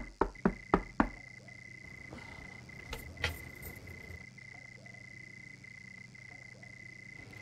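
Five quick knocks on a wooden front door in the first second, over a steady background of cricket chirping.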